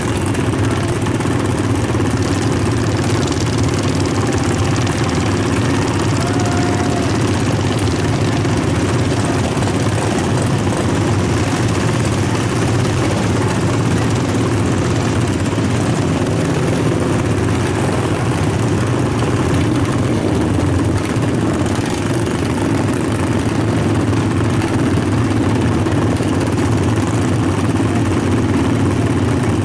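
Engines of small dirt-track racing machines idling and running at low speed, a steady drone with no hard revving.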